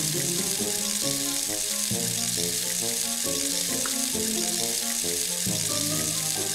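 Steady hiss of running water from a toy faucet as a toy toothbrush is rinsed under it, with light background music.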